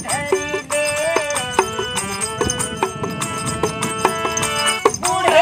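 Indian folk music: a bulbul tarang (keyed string zither) plays the melody, with notes ringing on, over light regular taps of a small hand drum. A woman's singing voice is heard briefly at the start and comes back at the very end.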